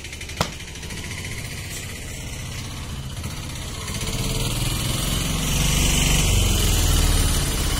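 An engine running steadily with a fast, even pulse, growing louder from about four seconds in; a single sharp click just after the start.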